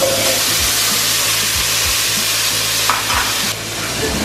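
Cubed potatoes sizzling steadily in hot oil in a deep frying pan, the hiss easing a little near the end.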